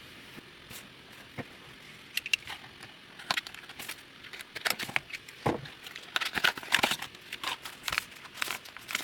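Packaging being handled and crinkled as the chin strap is unboxed. Sparse sharp crackles begin about two seconds in and become dense and louder from about halfway through.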